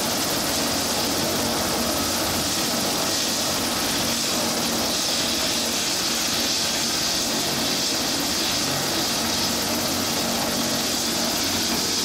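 Bell 429 GlobalRanger helicopter running on the ground, its twin turboshaft engines and main rotor making a steady, unbroken whine and rush.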